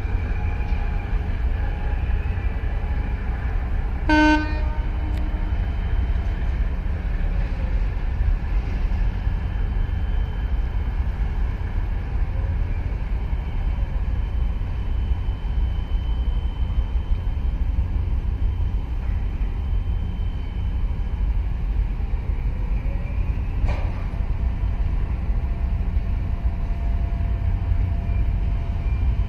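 Steady low rumble of the harbour, with one short horn toot about four seconds in and a single sharp click near the end.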